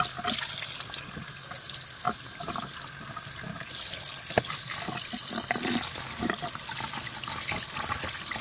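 Kitchen faucet running into a stainless steel sink as a plastic yogurt cup is rinsed under the stream, water splashing into and out of the cup. Light knocks of the cup are heard, with a sharper one about four seconds in.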